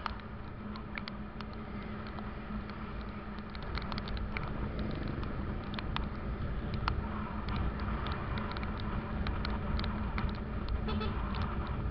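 Kawasaki ZX-25R's 250 cc inline-four with an Arrow exhaust running at a steady, gentle cruise on a wet road, with wind rush and scattered light ticks, as from raindrops hitting the camera.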